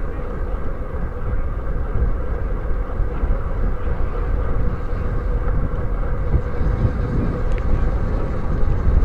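Steady rush of wind and road rumble on a bicycle-mounted camera's microphone while riding on pavement, with a steady hum underneath.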